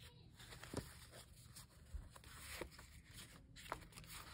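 Faint rustling and a few soft clicks of paper sticker sheets being handled and leafed through.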